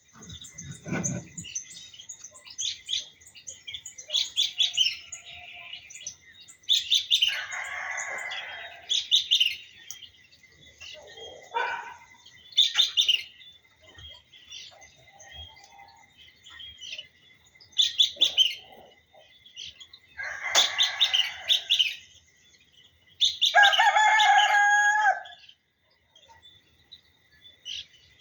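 Roosters crowing, three or so long calls, over songbirds chirping throughout and a thin steady high tone.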